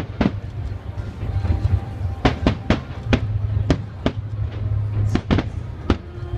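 Fireworks display: a rapid series of sharp bangs and cracks, bunched in clusters, over a steady low rumble.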